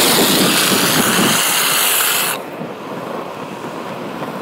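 Longboard wheels sliding sideways across asphalt in a hands-down drift to scrub speed: a loud hiss that stops abruptly about two and a half seconds in, leaving the quieter noise of the wheels rolling.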